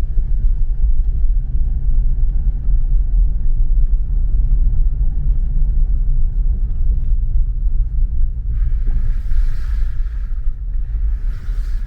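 Car driving on a sandy dirt road: a steady low road and engine rumble, with two spells of hiss near the end.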